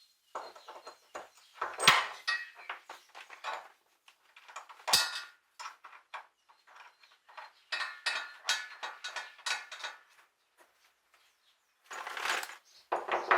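Irregular clinks, knocks and scrapes of hard objects being handled, with a couple of sharper knocks and a short pause near the end.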